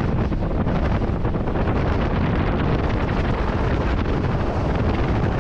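Speedboat running at speed, the wind rushing and buffeting steadily against the microphone over the drone of the engine and the hull on the water.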